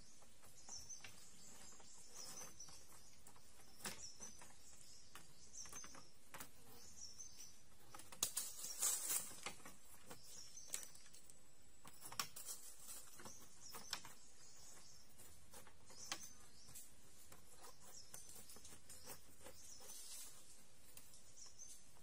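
Outdoor ambience with short high chirping calls repeating about once a second, scattered sharp clicks, and a louder burst of rustling or crackling about eight seconds in.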